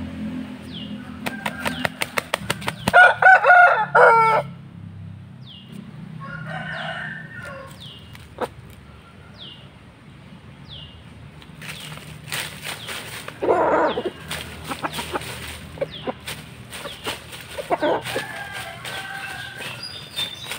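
A rooster beats its wings in a rapid flurry, then crows once, the loudest sound. Shorter calls and more wing flaps follow later.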